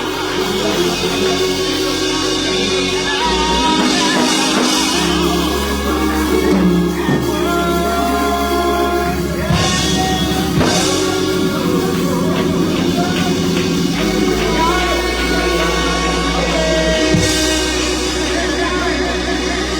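Gospel music from a church band, with drum kit, a steady bass line and singing.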